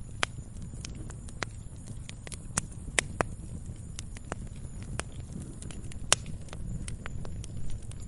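Wood logs burning in a campfire, crackling and popping irregularly over a low steady rumble, with the sharpest pops about three and six seconds in.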